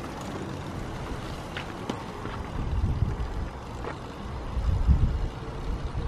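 Uneven low rumble of wind buffeting the microphone, swelling about five seconds in, with a few faint clicks.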